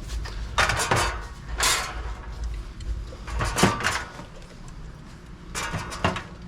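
Products being handled and loaded into a vending machine: four short bursts of rustling and clatter with quieter gaps between.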